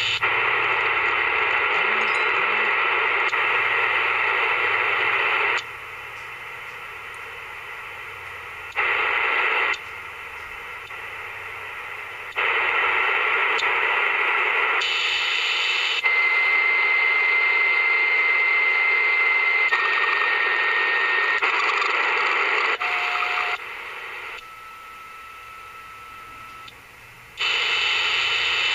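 Static hiss from a small AM/FM kit radio's speaker as its tuning knob is turned between stations. The loud hiss drops to a quieter level and jumps back several times, and in the second half steady whistling tones come in, each step lower in pitch than the one before.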